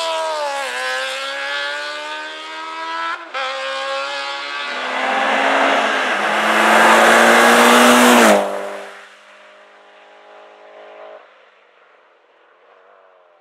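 Racing engines at a hill climb: a single-seater formula car revs up and down through the bends as it pulls away. About three seconds in, a Mitsubishi Lancer Evolution's turbocharged four-cylinder takes over, building at full throttle to a loud pass a little after eight seconds, then dropping off and fading into the distance.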